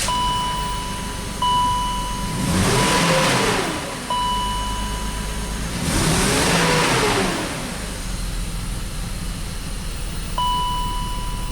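BMW X5 engine running with a misfire, revved up and back down twice. A steady high electronic beep sounds on and off over it.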